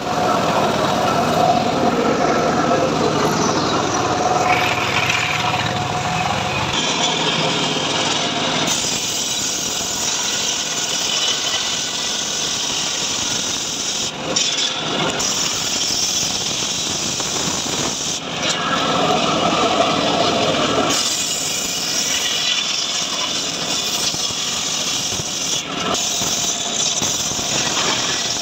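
Homemade circular saw bench ripping a rain-tree (trembesi) plank lengthwise. The spinning blade cuts through the wood continuously, and the tone of the cut shifts a few times as the load changes.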